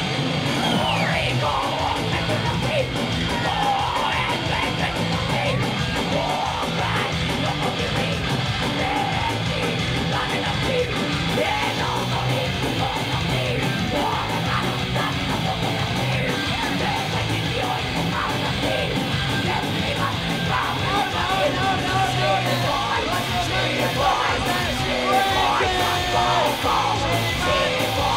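Loud rock music in a punk/heavy-metal style: distorted electric guitar over a fast, steady beat, with yelled vocals.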